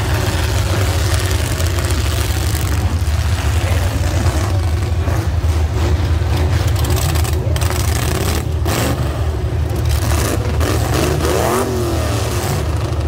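Demolition derby cars' engines running loud, revving up and down near the end, with a couple of sharp hits of car on car about seven and eight and a half seconds in.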